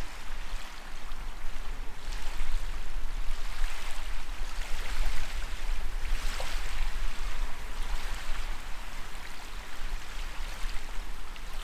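Fast-flowing tidal river water rushing and lapping, a steady hiss that swells and eases every second or two, with a low rumble underneath.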